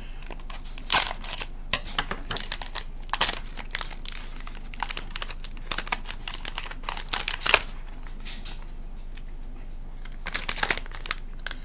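Foil blind bag crinkling and crackling in the hands as it is opened, in irregular bursts over the first seven seconds or so, then a pause and another burst near the end.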